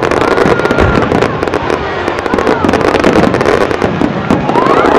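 Fireworks display: a dense, continuous run of bangs and crackling bursts.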